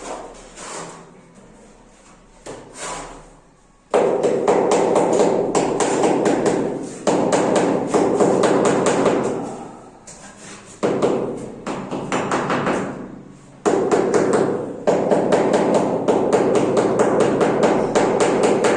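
Fast, repeated hammering or tapping in long runs of several seconds, with a few separate knocks before the first run starts about four seconds in.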